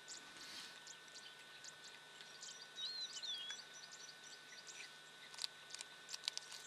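Honey badger chewing and crunching a snake carcass: scattered wet clicks and cracks, sharpest about five and a half seconds in and again near the end. A bird gives a two-note call about three seconds in, over a steady faint high tone.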